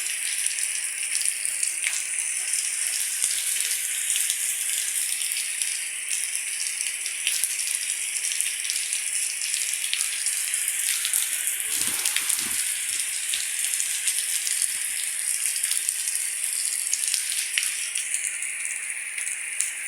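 Rain falling steadily: a dense, even hiss with many sharp ticks of individual drops striking.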